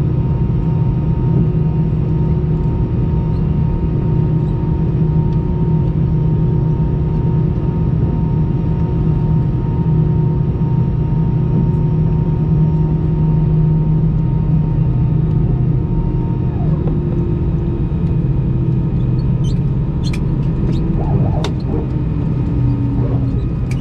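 Cabin noise inside an Airbus A319: a steady low rumble with a constant engine hum. About two-thirds of the way through, a high tone drops away and a lower tone slowly sinks in pitch as the engines wind down. A few sharp clicks come near the end.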